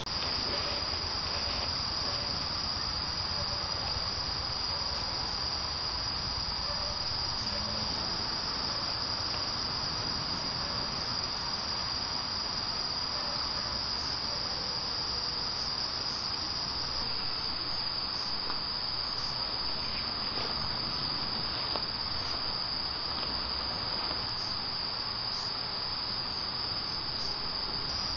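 Crickets chirring: a steady, high, continuous insect trill that does not let up.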